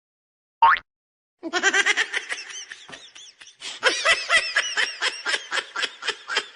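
A short, sharp squeak, then a long run of rapid, high-pitched laughter, giggle after giggle.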